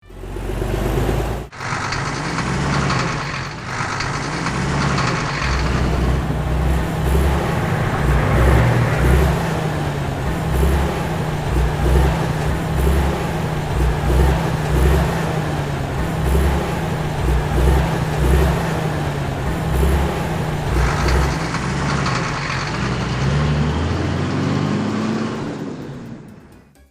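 Heavy truck engine running with a steady low rumble. Near the end its pitch rises briefly, then the sound fades away.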